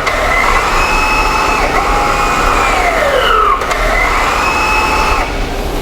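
Rear electronic parking brake caliper motors of a 2009 Audi A8 whining as they drive the brake pads open and closed during the parking brake function test. The whine falls in pitch, then rises again, repeating about every three and a half seconds, and stops a little after five seconds in.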